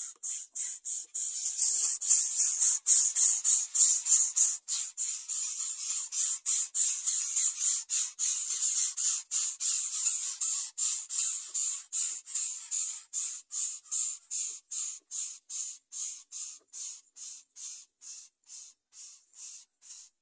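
Greater coucal nestling begging for food with a fast run of rasping hisses, about three a second, dying away over the last few seconds.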